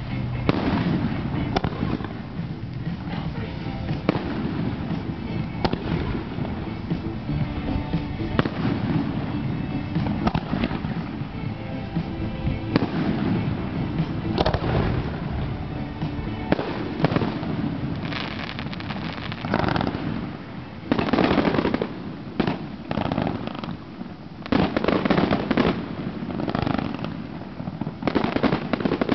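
Fireworks going off in rapid succession: sharp bangs and crackling bursts, thickening into dense volleys of quick shots about two-thirds of the way through.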